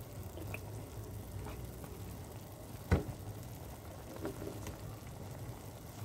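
Cooking at a stainless-steel pot of chicken in water and soy sauce: a steady low rushing noise with faint small ticks, and one sharp knock about three seconds in.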